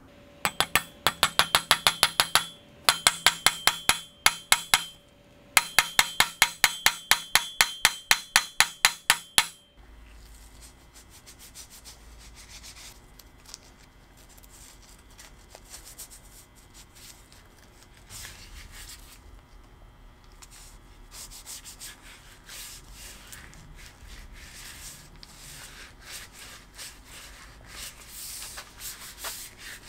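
A hammer drives a steel wedge into the top of a wooden axe handle in the eye of a steel fire-axe head, with sharp ringing metal strikes at about four a second in three runs. About ten seconds in the strikes stop, and gloved hands rub boiled linseed oil into the wooden handle with a soft, uneven rubbing that lasts to the end.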